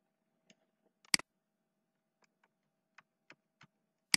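Computer mouse clicks: a sharp click about a second in and another at the end, with a few fainter ticks between.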